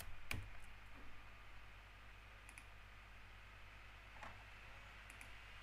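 A few faint clicks, the sharpest about a third of a second in and weaker ones around two and a half, four and five seconds in, over a steady low electrical hum.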